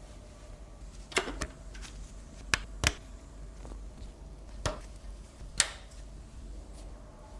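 Six sharp, separate clicks and knocks over a few seconds, as of computer hardware or case parts being handled and snapped into place, with the loudest pair about a second apart near the middle.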